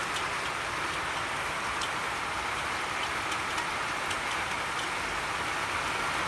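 Heavy rain falling steadily, a constant hiss with a few sharp drip ticks scattered through it.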